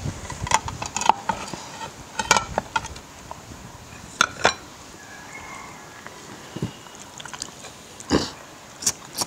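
Close-up eating sounds: wet chewing and lip-smacking of people eating with their hands, with occasional knocks of plates and glassware, one louder smack or knock about eight seconds in.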